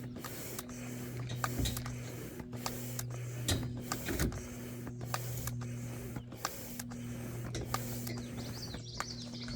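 Air pump inflating an inflatable boat: repeated pumping strokes of rushing air, about two a second, over a steady low hum.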